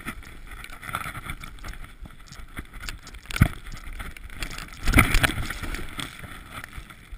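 Skis running through powder snow, with rushing wind and snow noise on a body-mounted action camera's microphone. A sharp knock comes about three and a half seconds in, and a loud burst of rushing and thumping about five seconds in.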